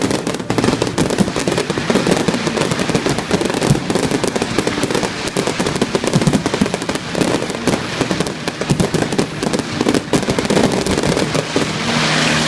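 Fireworks display: a dense, continuous barrage of shells bursting in rapid bangs and crackles, swelling into a hissing crackle near the end.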